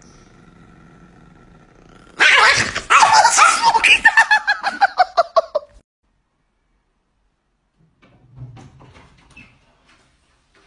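Chihuahua yapping in a fast run of barks for about three and a half seconds, the pitch sliding down as the run goes on. Near the end come only faint knocks and rustles.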